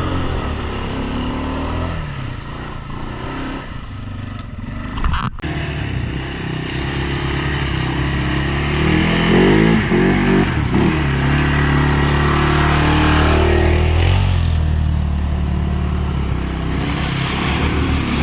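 ATV engine running under load, its revs rising and falling repeatedly. The sound changes abruptly about five seconds in.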